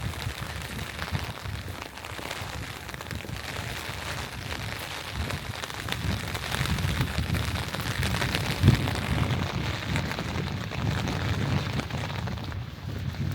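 Steady rain falling, a dense patter of drops over a low rumble, with one sharper knock a little under nine seconds in.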